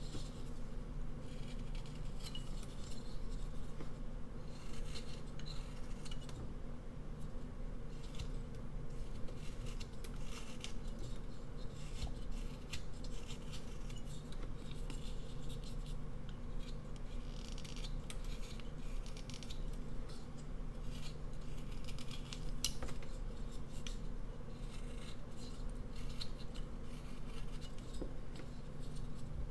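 Whittling knife slicing thin shavings from a basswood figure: a run of short, irregular scraping cuts with crisp clicks.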